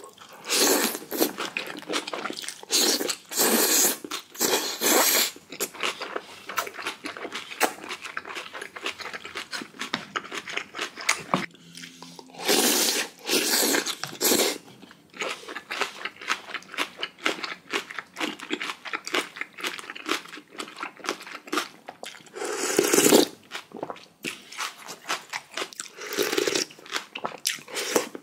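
A person eating close to the microphone: crunchy chewing and biting, a quick run of small clicks, broken by several longer, louder bursts of eating noise, the loudest about three-quarters of the way through.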